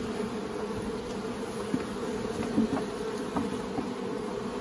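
Honey bees from a nuc colony buzzing steadily around the open hive, a continuous hum, with a couple of faint knocks partway through.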